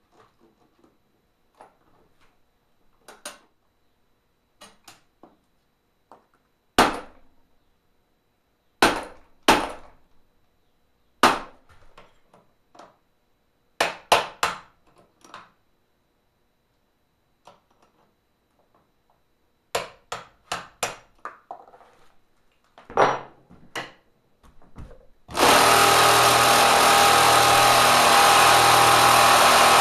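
Scattered sharp metal taps and clanks of hand tools working on a Kenmore sewing machine. About 25 seconds in, the machine's swapped-in 3/4 hp electric motor switches on and drives it loud and steady, with a regular low pulse.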